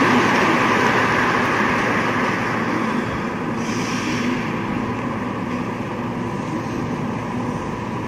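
Steady background noise of an indoor ice rink hall: an even hiss with a faint steady hum, slowly getting quieter.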